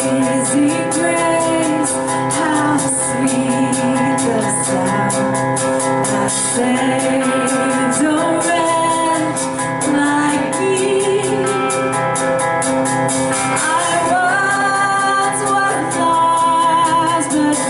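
Church worship band playing a song: sung vocals over guitar chords and a steady drum beat.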